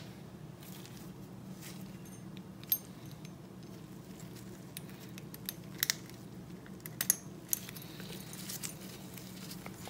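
Scattered light metallic clicks and clinks from an Amal carburettor slide, needle and return spring being handled and hooked onto the throttle cable, the sharpest a little under three seconds in, over a steady low hum.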